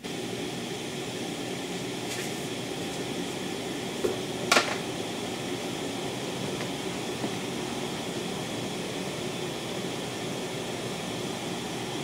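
Residual noise of a phonostage at high gain, heard through the speakers: a steady hiss ("rush") with a faint hum under it, the hum largely filtered out by one SP capacitor pack in the power supply chain. A single sharp click about four and a half seconds in.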